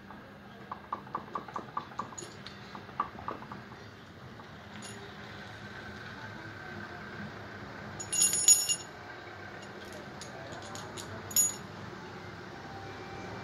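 Small steel hydraulic valve parts (spools, springs and end caps) clicking and clinking against each other and the cast-iron valve block as they are handled and fitted. A quick run of light clicks near the start, then two bright ringing metal clinks, the loudest about two thirds of the way through.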